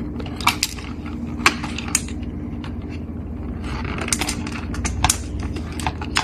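Irregular small clicks and taps of wire connectors being handled and plugged onto a display's replacement motherboard, over a steady low hum.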